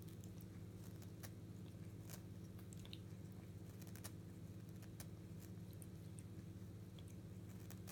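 Faint, irregular wet clicks of a Norwegian Forest Cat licking and chewing the fluffy white fur of a toy, over a steady low hum.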